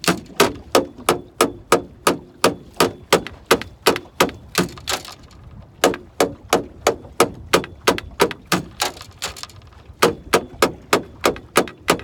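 Aluminum boat hull beaten with a rapid run of sharp knocks, about three or four a second, with short breaks about five and nine seconds in. The hull is being banged deliberately to stir up fish under the boat.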